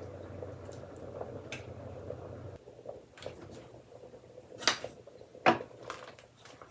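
A wire whisk stirring thick brown gravy in an enamelled pot, scraping and clinking against the pot, while a utensil also stirs a pot of boiling noodles. Sharp clinks come through the stirring, with the two loudest about four and a half and five and a half seconds in. A steady low hum underneath cuts off about two and a half seconds in.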